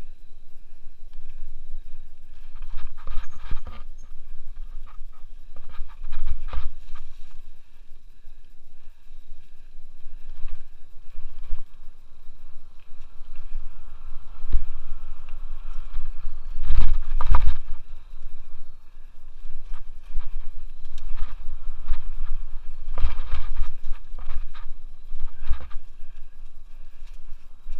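Scott Aspect 770 mountain bike riding a leaf-covered dirt trail, heard from a helmet camera: steady wind rumble on the microphone with tyre noise, broken by irregular knocks and rattles of the bike over bumps, the loudest a pair about 17 seconds in.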